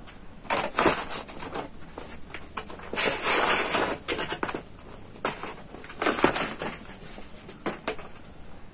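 Paper food wrapping crinkled and unfolded by hand: irregular bursts of rustling with sharp crackles, the longest stretch about three seconds in.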